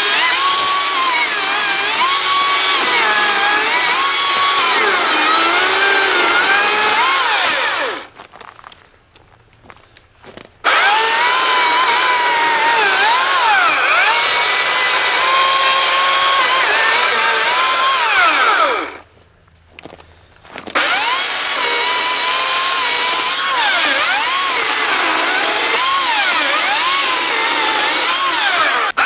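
AEG ACS58B200 58V brushless cordless chainsaw cutting through branches and logs. The motor and chain whine at high speed, the pitch dipping and recovering again and again as the chain bites into the wood. It stops twice for about two seconds, about a third and two-thirds of the way through.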